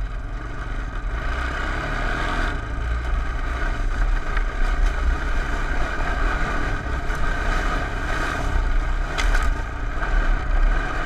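Honda TRX 250 four-wheeler's engine running under way at riding speed, its level stepping up a little about two and a half seconds in.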